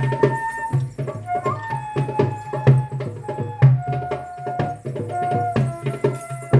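Music with quick, steady hand-drum strokes under a held melody line that moves from note to note in long tones.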